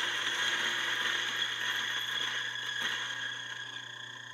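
Eureka Oro Mignon Single Dose 64 mm flat-burr grinder grinding a dose of coffee beans at a coarse setting. It is very loud: a steady motor whine over a dense crunching rattle. The grinding noise grows quieter in the last second or so while the motor keeps running.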